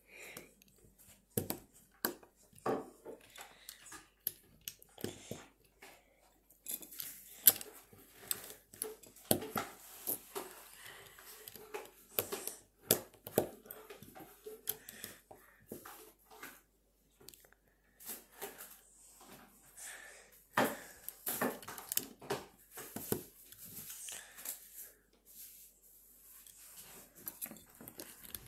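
Plastic LEGO bricks clicking and clattering as they are handled and pressed together, a stream of irregular sharp clicks with short quiet gaps.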